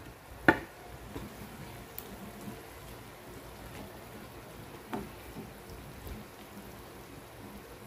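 Pork, liver and vegetables simmering and sizzling in a wok with a steady crackling hiss, while a wooden spatula stirs them. A sharp knock of the spatula comes about half a second in and a softer one near five seconds.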